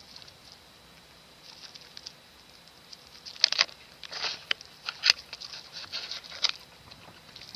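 A hamster gnawing and crunching on a small corn cob: quick, crisp clicks and crackles that grow louder and busier after about three seconds, with a few sharp snaps.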